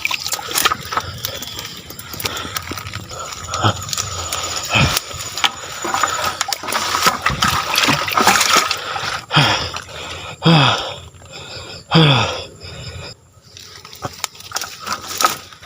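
Water splashing and sloshing in irregular bursts. Several short sounds slide down in pitch between about 9 and 12 seconds in, and the splashing dies down near the end.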